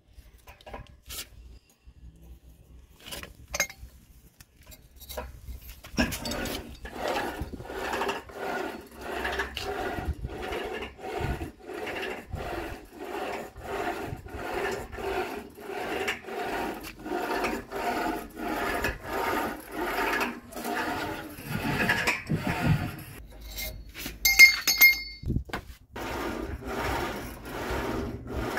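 Rope running back and forth over the pulleys of a homemade wooden cable exercise machine under load, a rhythmic rubbing creak repeating with each rep from about six seconds in. A few sharp metallic clinks come near the end.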